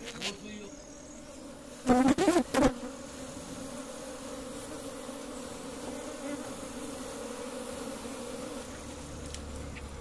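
A colony of honey bees buzzing in a steady, even hum from an opened box hive as its comb is being handled.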